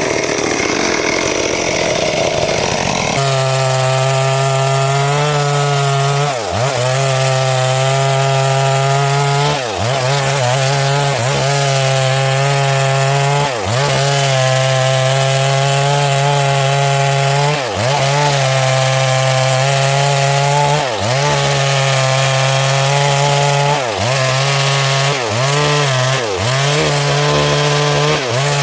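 Stihl MS 382 two-stroke chainsaw running at high revs while ripping a log lengthwise into boards. From about three seconds in, the engine holds a steady high note that sags briefly and recovers every few seconds.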